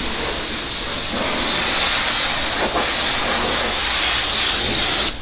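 Pressure-washer wand blasting a high-pressure jet of water onto a car's windshield and body: a steady loud hiss that gets louder about a second in and cuts off suddenly near the end as the trigger is let go.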